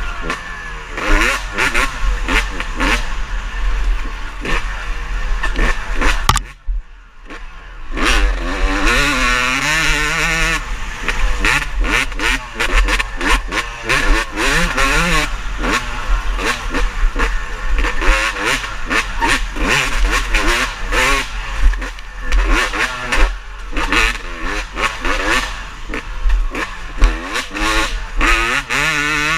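Several motocross race bikes revving hard and shifting as they race past, their engine pitches climbing and falling over one another. There is a brief lull about a quarter of the way through.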